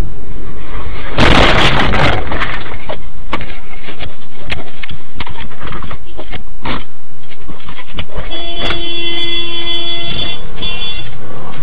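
A motorcycle crash heard through a car's dashcam: a harsh, loud burst of crashing and scraping noise about a second in, followed by scattered knocks and clicks. Near the end a steady tone is held for about two seconds.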